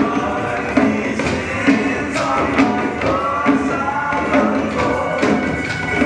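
Several djembe drums beaten by hand in an ensemble, playing along to a recorded pop song with a sung vocal line.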